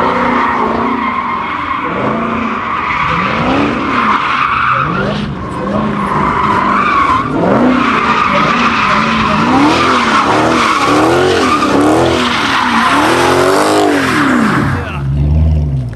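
Dodge Hellcat's supercharged V8 revving up and down over and over, about once a second, while the tyres squeal in a long slide. Near the end it drops back to a low, steady idle.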